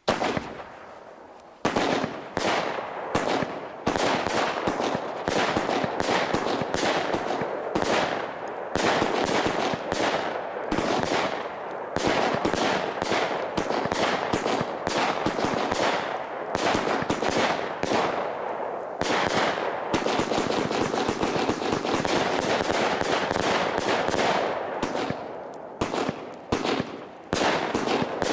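Startrade Feuerzauber XL compound firework battery firing: quieter for the first second and a half, then a rapid, almost unbroken run of shots launching and bursting, with crackling volleys.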